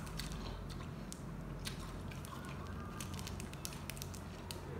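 A person chewing a mouthful of food while a plastic snack wrapper is handled, giving many short, sharp crackles and clicks over a steady low hum.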